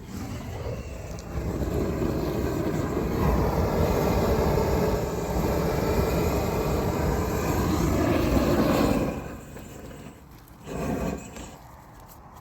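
Gas torch running with a steady roar, as used to heat and seal bitumen (Isogam) waterproofing membrane; it cuts off abruptly about nine seconds in, with a short burst about a second later.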